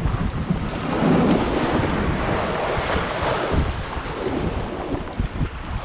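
Rough sea surf breaking and washing around rocks, one surge swelling about a second in and easing off after about three and a half seconds. Wind buffets the microphone throughout.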